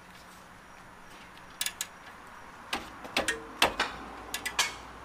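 Hand socket ratchet clicking in short, irregular groups of sharp metallic clicks as the rear brake caliper bracket bolts are tightened. The clicks start about a second and a half in.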